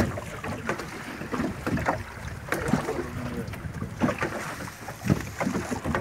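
Waves slapping and knocking against the hull of a small open fishing boat rocking on a choppy sea, in irregular splashes and thuds.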